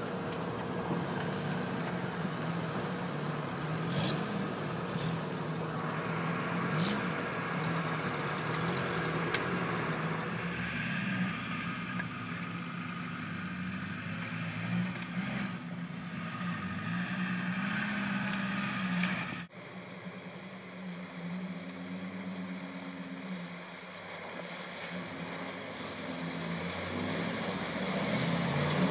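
Suzuki Samurai's four-cylinder engine running under load on the trail, its pitch rising and falling with the throttle. About two-thirds of the way through it cuts off abruptly to a quieter engine, a Jeep Grand Cherokee's 5.2 L V8 working through mud, which grows louder near the end.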